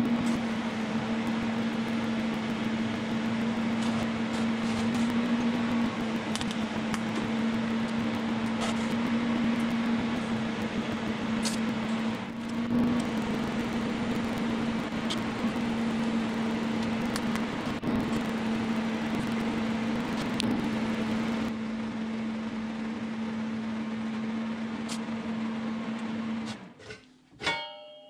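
A machine running steadily, a low hum over an even hiss, that stops near the end; a few metal clinks and a short ring follow.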